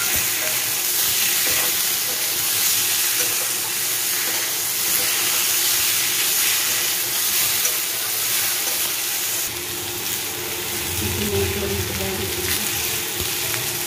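Potato pieces sizzling steadily in hot oil in a metal kadai, stirred and scraped with a flat metal spatula.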